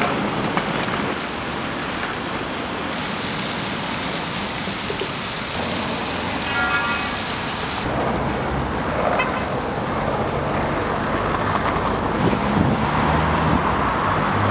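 Outdoor urban ambience: a steady rushing noise of traffic and open air, changing abruptly several times where the shots cut. A brief pitched sound stands out about halfway through.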